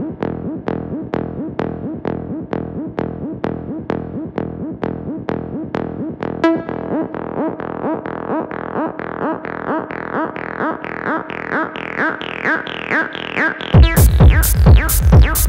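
Acid techno track: a repeating TB-303-style acid synth bassline pulses at an even tempo, its filter gradually opening so the notes grow brighter. About a second and a half before the end, a heavy kick drum and hi-hats drop in and the music gets much louder.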